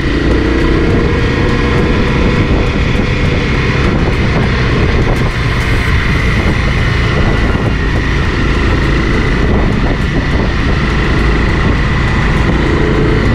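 Honda CRF 250 Rally's single-cylinder engine running at a steady cruising speed, with heavy wind rumble on the microphone and a steady high whine.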